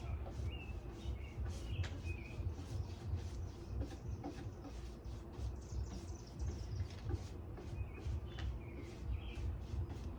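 Outdoor ambience: birds chirping now and then over a steady low rumble, with a run of short clicks or scrapes throughout.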